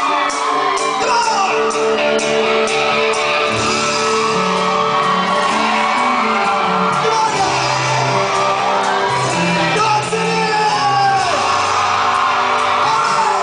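Loud rock music from a live band: electric guitar and drums, with a singer shouting the lines into the microphone.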